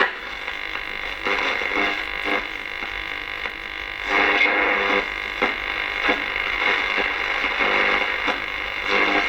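Audiosonic CL205 clock radio's small built-in speaker playing a station buried in interference: a steady hiss and whine, with broken-up broadcast sound fading in and out.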